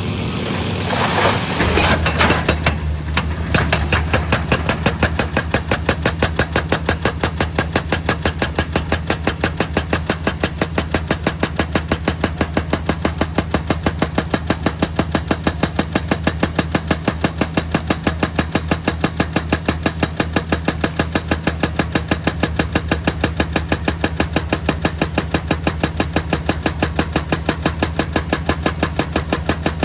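Excavator-mounted hydraulic rock breaker hammering rock in a rapid, even rhythm over the steady drone of the diesel engine, starting about two seconds in.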